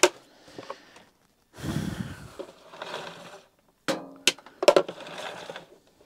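Plastic handling noises from a Numatic Henry vacuum cleaner being reassembled: a sharp click as the motor head is pressed onto the tub, then scraping and rubbing of the plastic casing and cable, and a few more sharp clicks about four seconds in.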